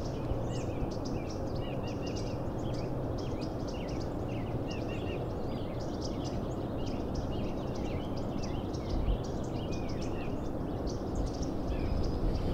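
Several small birds chirping and calling continually, their short quick notes overlapping, over a steady low rumble of background noise.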